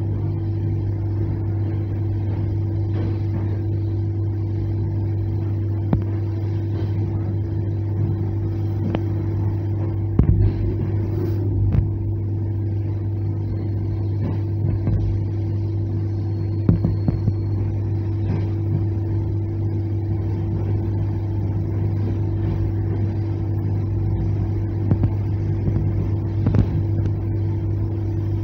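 Inside a moving ER9M electric multiple unit: a steady hum and running noise, with now and then sharp knocks of the wheels, singly or a few together.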